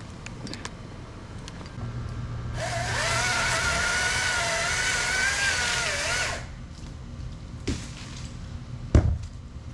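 Chainsaw run up to high revs for about four seconds, its pitch wavering as it runs, then dropping back. A couple of sharp knocks follow near the end.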